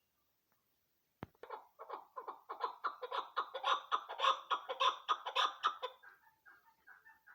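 Chukar partridge calling: a fast run of repeated cackling chuck notes, about four or five a second, starting just after a sharp click about a second in. The run breaks off near the end into fainter, higher chattering notes.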